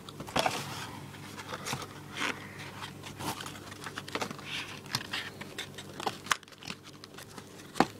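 A small firework's cardboard box and packaging being opened by hand: irregular crinkling, rustling and tearing, broken by short clicks and snaps.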